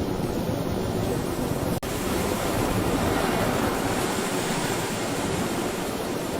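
Steady rushing of storm water and wind, with a split-second dropout about two seconds in.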